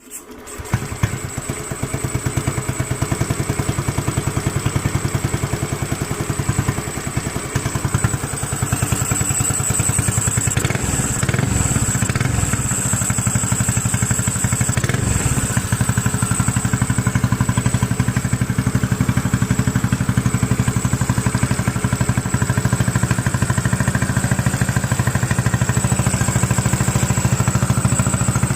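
Engine running at a steady idle, with a thin high whine above it.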